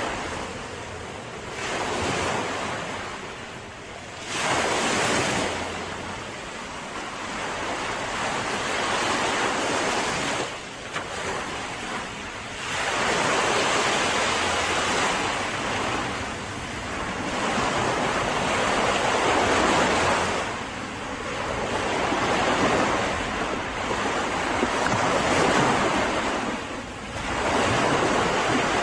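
Mediterranean sea waves breaking and washing up a beach, one surge after another every few seconds, with some wind noise on the microphone.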